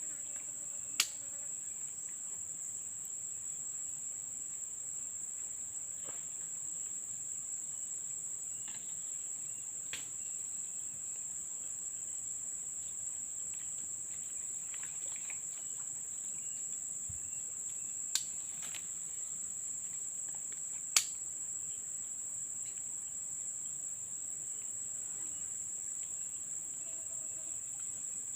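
A steady, shrill insect chorus drones without a break. Three or four sharp clicks stand out over it, the loudest about a second in and near 18 and 21 seconds.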